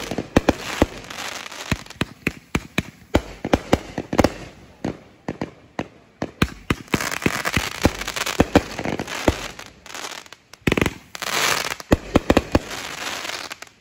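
Aerial fireworks bursting: a dense run of sharp bangs and crackles over a steady hiss, easing off briefly twice before picking up again, then cutting off suddenly at the end.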